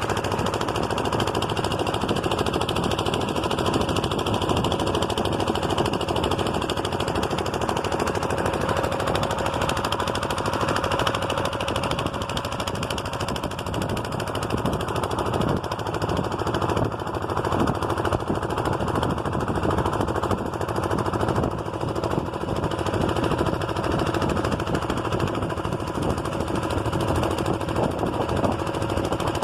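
An engine running steadily for the whole stretch, with a fast, even chugging and a constant hum.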